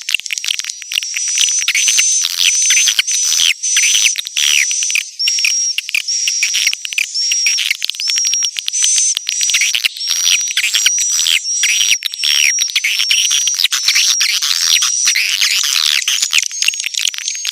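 Swiftlet lure recording: a dense chorus of edible-nest swiftlet chirps and twitters, the kind played from swiftlet nest houses to attract birds. A high, steady whistled note repeats about once a second over a continuous mass of fast, falling chirps.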